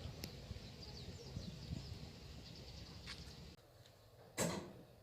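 Faint outdoor ambience with small birds chirping and a low rumble. About three and a half seconds in it drops suddenly to quieter background, followed by a single sharp click.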